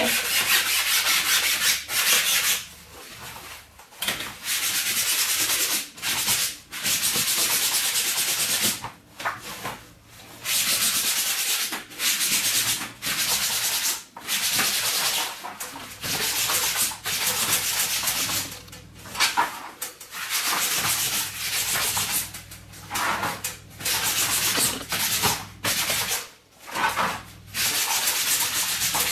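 Hard abrasive side of a sponge scrubbing a soaped nylon umbrella canopy. The rubbing comes in stretches of one to two seconds with short pauses between them.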